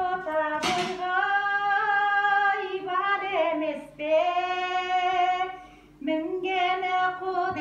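Elderly woman singing Kazakh aitys verse unaccompanied, in long drawn-out notes that bend in pitch, breaking off for a breath about six seconds in.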